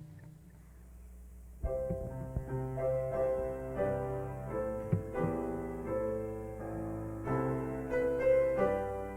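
Piano playing sustained chords, coming in about a second and a half in after a brief lull.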